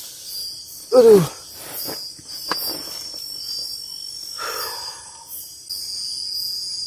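Crickets and other night insects chirping steadily, with a pulsing trill high above. About a second in, a man gives one short, loud groan that falls in pitch as he stretches.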